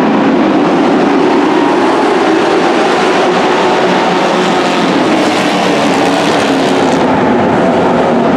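Engines of a pack of dirt-track racing trucks running together, loud and steady, with several engine notes overlapping.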